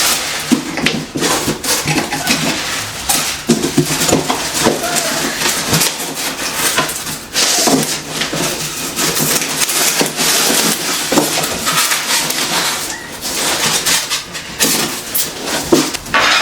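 Unboxing handling noise: packaging rustling and crinkling, with frequent irregular knocks and clinks of the stand's metal parts being moved.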